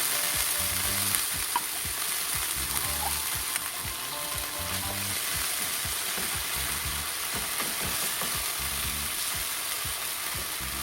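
Canned corned beef frying in oil with sautéed onions and garlic, a steady sizzle broken by the irregular scrapes and taps of stirring in the pan.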